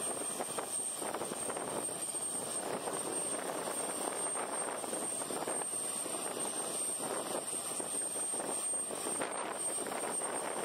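Jet engines of an Airbus A320neo-family airliner running steadily as it moves along the runway, a constant drone from a distance.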